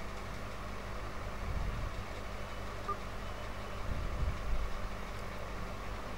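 Steady low electrical hum, with a few soft low thuds from a hand pressing and kneading a stiff ball of wheat-flour dough in a glass dish.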